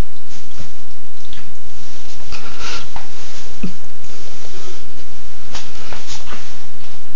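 Cats eating wet food from a steel bowl: wet chewing and licking with scattered small clicks.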